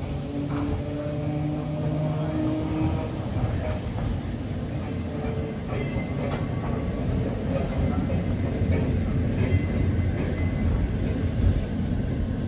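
Museum tram running along the track: a steady rumble of wheels on rail, with a few scattered clicks and clacks.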